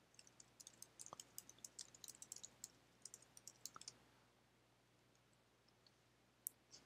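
Faint computer keyboard typing: a quick run of key clicks that stops about four seconds in, with one more click near the end.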